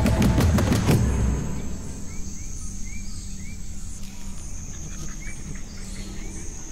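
Loud music cuts off about a second in. It gives way to rainforest ambience: a steady high-pitched insect drone with short, repeated bird chirps over it.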